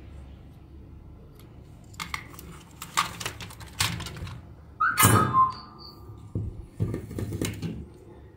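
Bench handling noise: a run of knocks and clatters as plastic toy parts and tools are moved about on a work mat. The loudest clatter, about five seconds in, carries a brief ringing tone.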